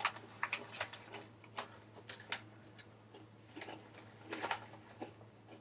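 Crunchy fry-shaped potato crisps crunching as they are chewed, a few sharp, irregular crackles and clicks spread through, some louder than others.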